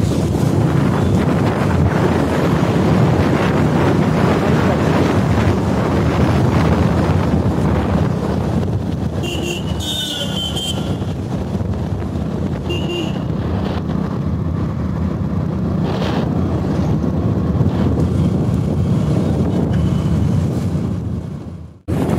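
Wind buffeting the microphone over the steady running of a two-wheeler riding along a road. A short high-pitched tone sounds about ten seconds in and again a few seconds later. The sound cuts out for a moment near the end.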